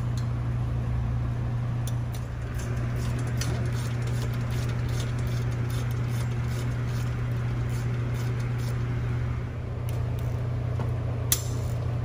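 Faint metallic clicks and taps of a hex key and screwdriver working the screws of a Rinehart slip-on muffler's end cap, with one sharper click about eleven seconds in. A steady low hum lies underneath throughout.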